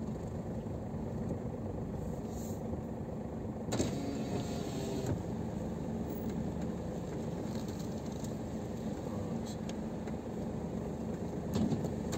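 Ford Everest rolling slowly, heard from inside the cabin: a steady low rumble of engine and tyres, with a short louder rush about four seconds in and a brief knock near the end.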